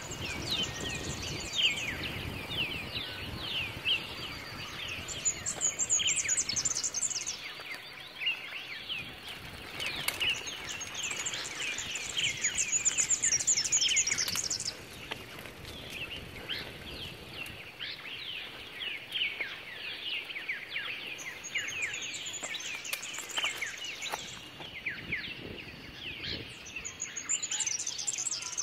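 Many birds chirping and calling together, a dense run of short, quick calls throughout, with spells of higher-pitched chattering every few seconds.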